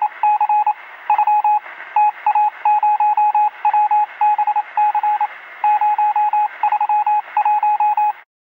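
Morse-code style beeps: a single steady tone keyed on and off in quick runs of short and longer beeps, with a thin, radio-like sound. The beeping stops just before the end.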